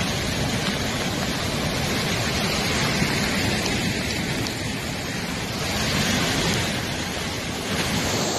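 Steady, loud rushing noise of heavy rain and fast-flowing floodwater.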